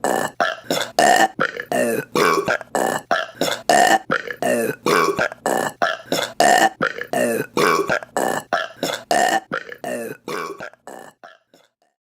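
Women's burps in quick succession, short and clipped, about two to three a second, growing fainter near the end and stopping.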